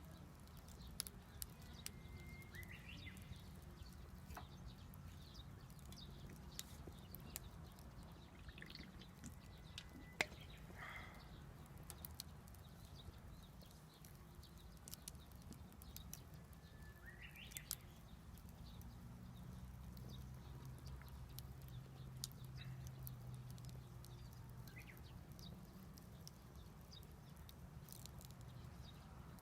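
Wood fire crackling faintly with scattered sharp pops, the loudest about ten seconds in, while a bird chirps briefly a few times.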